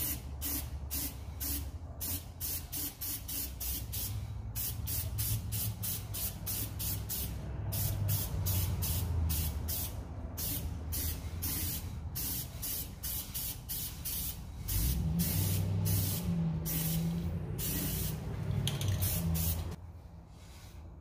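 Aerosol spray paint can (Rust-Oleum High Performance Enamel, gloss black) hissing out many short, quick bursts as a brake drum is coated, with brief pauses between runs of bursts; the spraying stops about a second before the end. A steady low hum sits underneath.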